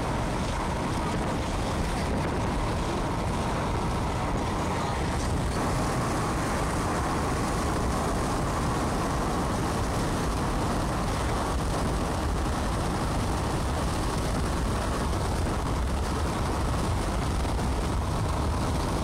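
Steady road and wind noise of a car driving: an even rushing sound with a deep rumble underneath.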